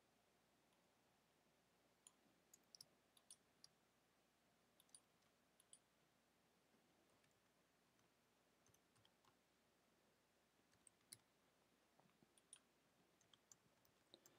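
Faint computer keyboard typing: irregular clusters of soft key clicks separated by short pauses, against near silence.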